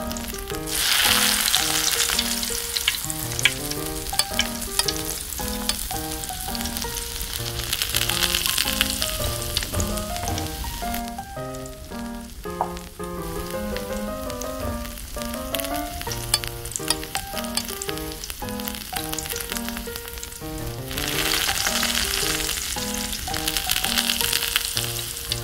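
Food sizzling in hot oil in a miniature steel wok, in two spells: from about a second in to about eleven seconds, and again near the end. A light tune of plucked notes plays throughout.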